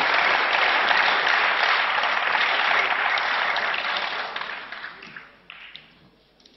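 Applause from members seated across a large parliament chamber. It holds steady for about four seconds after a speech ends, then dies away.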